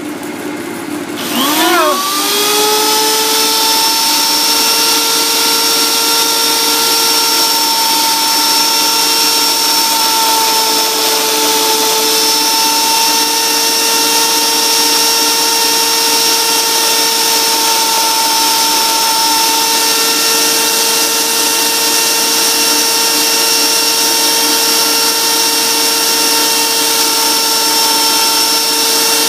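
A die grinder with a router bit spins up about a second in, its whine rising quickly and then holding steady and high, with a hiss of cutting over it. Under it runs the electric motor of a homemade lathe turning a Corian blank.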